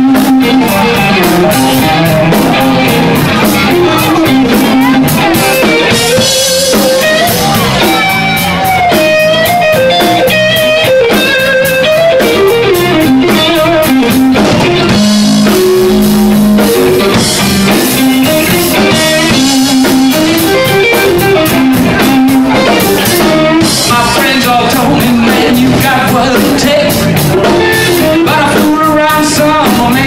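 Live blues band playing: electric guitar lines over a drum kit and a second guitar or bass.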